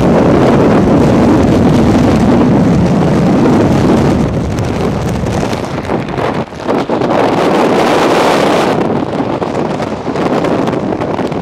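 Hurricane-force wind buffeting the microphone: loud, continuous wind noise that dips briefly about six and a half seconds in and turns gustier and a little weaker near the end.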